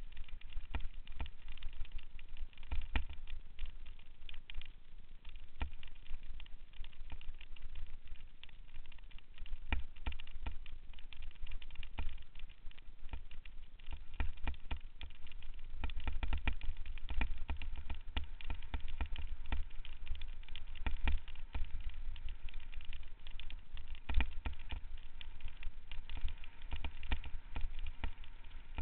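Mountain bike clattering and rattling as it rides over a rough, rutted dirt trail, with a constant run of small knocks from the bumps. Low wind rumble sits on the microphone underneath.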